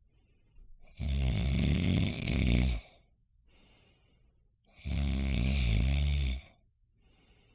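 A man snoring: two long snores about four seconds apart, each lasting just under two seconds, with quiet gaps between them.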